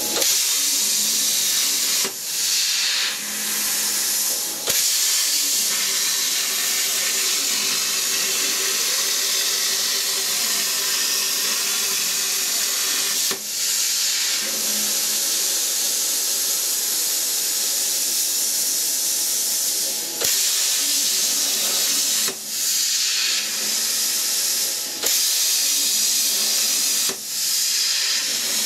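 CNC plasma cutter's torch arc hissing steadily as it cuts 2 mm sheet, with about seven brief breaks where the arc stops and the torch moves to start the next hole or contour.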